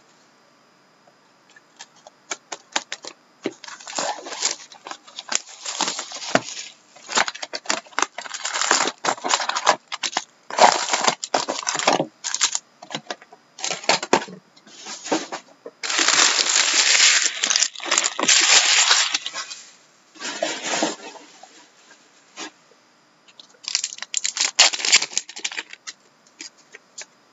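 Plastic wrapper of a sealed trading card pack crackling and rustling as it is handled, then a long, loud crinkling tear about two-thirds of the way through as the pack is ripped open. Near the end come shorter bursts of rustling as the cards are slid and shuffled.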